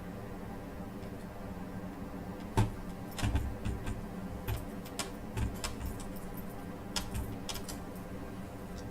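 Irregular small metallic clicks and taps of screws and a screwdriver being handled while fastening a laptop screen assembly. They start about two and a half seconds in, over a steady low hum.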